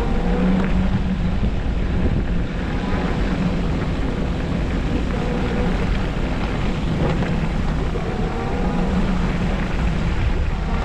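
Steady wind and road rumble from riding an e-bike through snow, with a faint wavering hum that comes and goes underneath.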